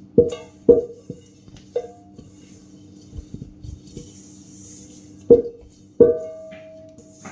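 Soft plucked-string background music. Over it come a few sharp metallic knocks that ring on briefly: a stainless steel mixing bowl being handled while it is wiped dry with a cloth. The loudest knocks come near the start and again after about five seconds.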